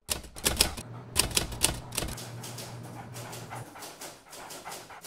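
Manual typewriter keys striking the paper: a quick run of sharp clacks in the first two seconds, then fainter, sparser ones. A low steady hum sits underneath in the middle.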